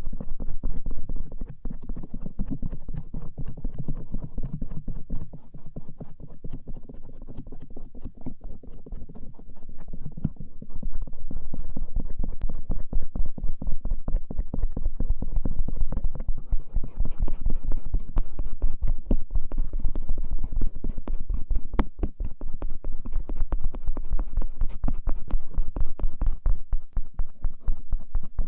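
Bamboo ear pick scratching and rubbing over the outer ear (auricle) close to the microphone, in a steady run of rapid strokes that grows louder about ten seconds in.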